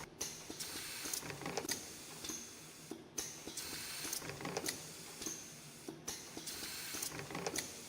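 CNC extension-spring coiling machine running through its production cycle, which repeats about every three seconds: a hiss with scattered quick clicks and ticks in each cycle, and a brief pause between cycles.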